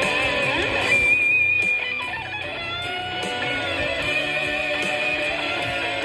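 Epiphone Les Paul SL electric guitar played through Logic Pro's Echo Studio amp patch with delay, a clean lead line with rising slides in the first second. About a second in a high note rings out loudly and is held, then a note bends upward before sustained notes carry on.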